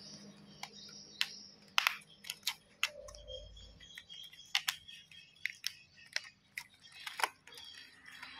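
Foil soft-lure pouch being slit open with a blade and its clear plastic tray handled: a dozen or so irregular sharp crinkles and plastic clicks.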